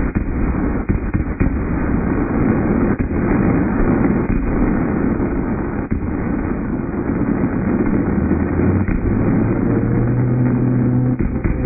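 Fireworks finale: a dense, unbroken barrage of bursts and booms running together into a rumble, with sharper reports in the first few seconds. About eight seconds in, a steady low tone sets in under the barrage, and higher steady tones join it near the end.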